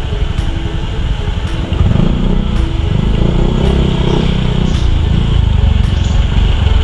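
Yamaha Mio i 125S scooter riding in slow city traffic: its small single-cylinder engine running under a rough low rumble of road and wind noise, with a steadier engine drone from about two seconds in.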